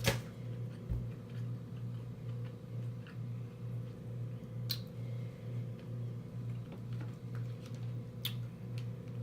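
A person eating seafood with the mouth close to the microphone: three sharp smacks or clicks, near the start, about halfway and near the end. Under them a steady low hum pulses a few times a second.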